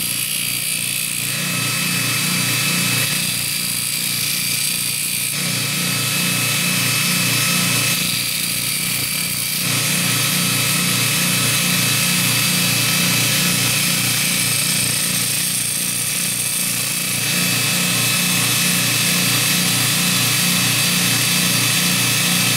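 Belt grinder with a 100-grit zirconia belt on a 10-inch expander wheel, driven by a 1/2 hp Baldor motor, running steadily while the steel of a fuller is ground cold against the belt. The grinding hiss changes in tone several times as the tool is worked over the belt to take off a sharp edge.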